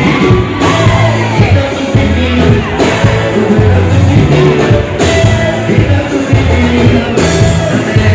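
Live band music played loud through a PA system, with a singer's voice over a heavy bass line.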